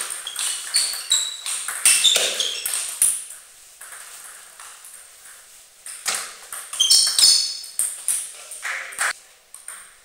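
Table tennis ball clicking back and forth off the rackets and the table, each hit a sharp click with a short high ring, in two fast rallies about three seconds apart.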